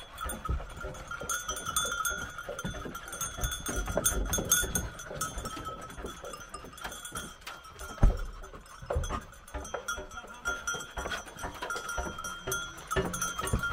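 Metal bells clanking and ringing on and off, from hunting dogs shifting about in metal cage boxes on a pickup truck, with small knocks and one heavier thump about eight seconds in.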